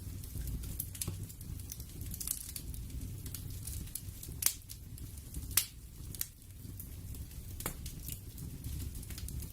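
Crackling ambience: irregular sharp pops and snaps over a steady low rumble, with two louder snaps near the middle.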